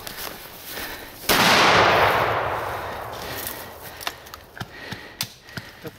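A single close gunshot about a second in, very loud and followed by a long echo fading over about two seconds, with brush crackling and footsteps through dry leaves around it.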